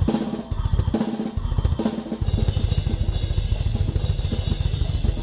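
Drum kit solo played fast. In the first two seconds come a few heavy drum hits; from about two seconds in, a rapid run of bass drum strokes goes on under ringing cymbals.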